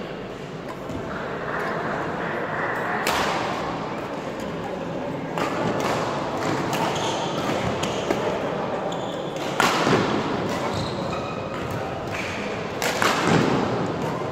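Badminton rally: sharp racket strikes on the shuttlecock and thuds of players' feet on the court, echoing in a large hall, the loudest about ten and thirteen seconds in. Faint voices from other courts murmur underneath.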